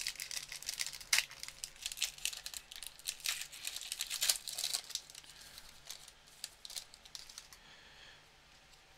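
Trading-card pack wrapper being torn open and crinkled in the hands: a dense run of sharp crackles that thins out after about five seconds.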